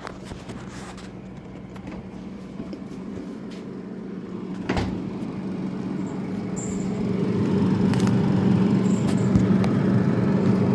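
A steady low machine hum with a rushing noise that builds and grows gradually louder, with a few sharp knocks.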